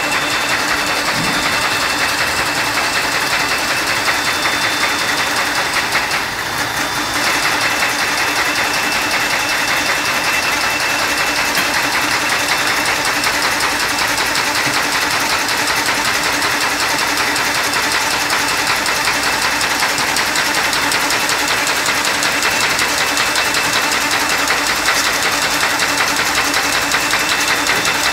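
Paper folding machine running at production speed, a steady fast mechanical clatter that dips briefly about six seconds in.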